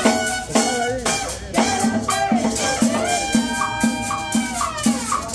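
Live cumbia music from a street band: a steady beat about three times a second with maracas shaking over drums, and a melody line of held notes.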